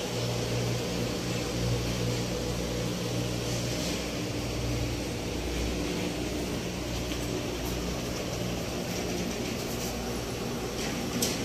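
A steady mechanical hum from a running machine, with a low drone that weakens about four seconds in.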